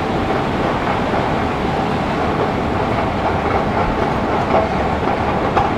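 Stockholm metro (tunnelbana) train running, a steady loud rumble with a few faint clicks in the second half.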